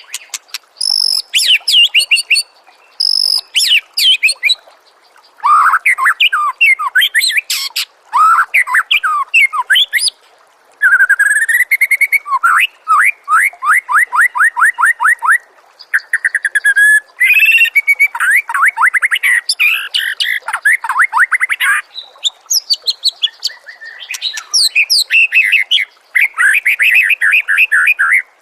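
A songbird singing loudly in varied phrases: fast runs of repeated whistled notes and trills, with short pauses between phrases.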